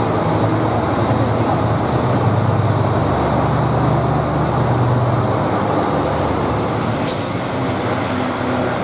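Large diesel engine of an airport fire engine running, a steady low drone that eases slightly near the end.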